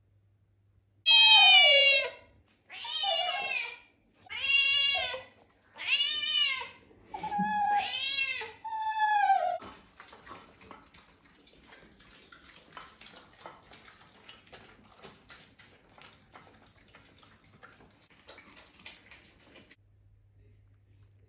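Bengal cat meowing six times, drawn-out meows about a second and a half apart, followed by several seconds of faint irregular clicking.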